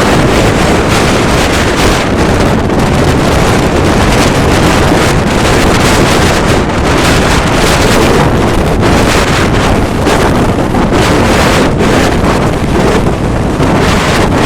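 Strong wind buffeting the microphone: a loud, steady rumbling roar.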